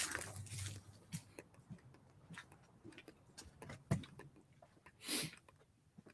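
Faint scattered clicks and knocks from someone moving about and handling things, with a short rustle about five seconds in.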